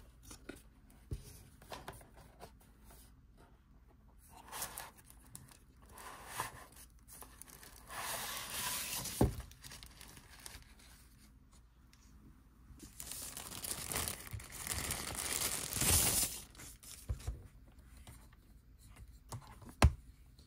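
Parcel packaging being torn open, with plastic wrapping crinkling: two longer stretches of tearing and rustling, with scattered clicks and taps between them.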